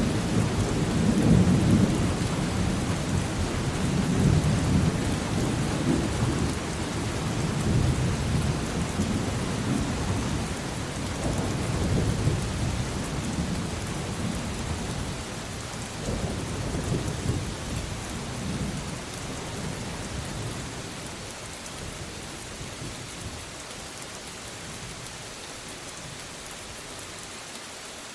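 Steady heavy rain with rolling thunder rumbling in repeated swells that die away over the last third, leaving the hiss of rain alone.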